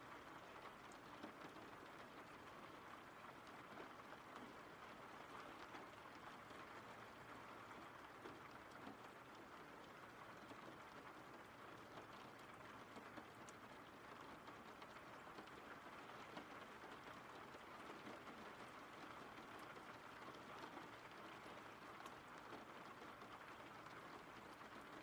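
Faint, steady rain: an even hiss of rainfall with scattered light ticks.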